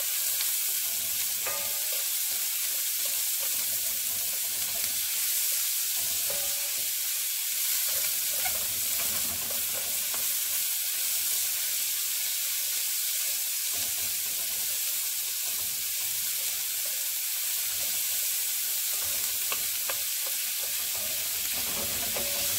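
Diced onions and green pepper sizzling steadily in a cast iron skillet, with a wooden spoon stirring through them and giving a few light scrapes.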